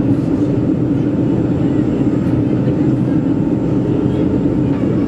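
Steady cabin noise inside a Boeing 737-400 airliner in flight: engine and airflow noise, even and unbroken.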